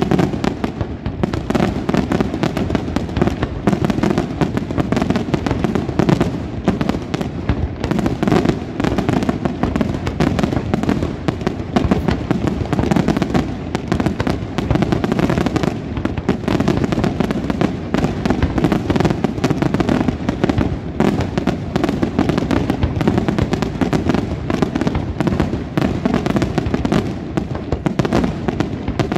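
Aerial firework shells bursting in a dense, unbroken barrage, many bangs a second overlapping each other.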